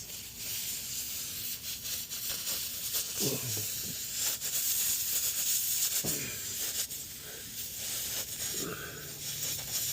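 Air hissing steadily out of a nail puncture in a car tire.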